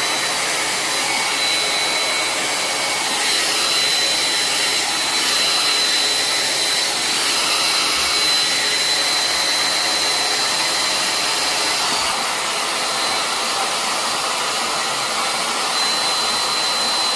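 Handheld blow dryer running on its high setting: a steady, loud rush of air with a thin high whine on top.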